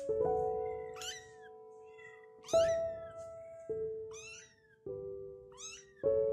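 Fifteen-day-old calico kitten mewing about five times, each call high and thin and falling in pitch. Slow background music with held notes plays underneath.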